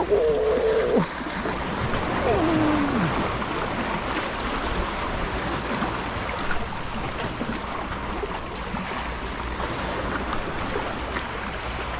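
Sea surf washing steadily against shore rocks. Two short wordless vocal sounds from a man come near the start: a held hum, then a falling "ooh".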